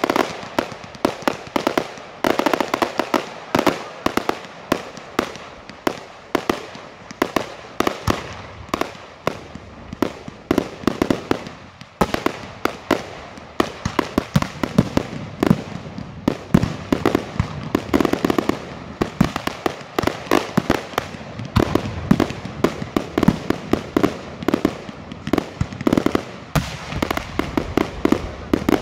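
Aerial fireworks shells bursting in quick succession: a dense, unbroken run of sharp bangs, several a second.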